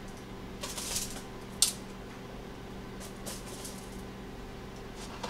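Aluminium foil crinkling in a few short bursts as breaded eggplant slices are handled on a foil-lined tray, with one sharp tap about a second and a half in.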